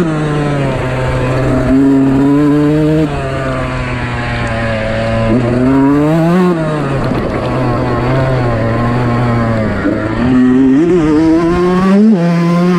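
Fantic 125 motocross bike's two-stroke engine under way on the throttle, its pitch climbing and dropping with the rider's throttle and gear changes, with a sharp rise about six seconds in and another near the end.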